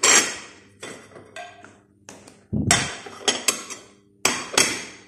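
Dishes and metal serving ware clattering: a run of sharp clinks and knocks, each ringing briefly, with a heavier thump a little past halfway, over a low steady hum.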